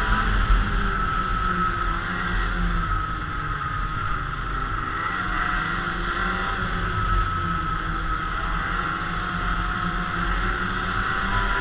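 Polaris snowmobile engine running steadily under way, with a constant whir from the drive and track. The engine pitch rises and falls slightly as the throttle changes.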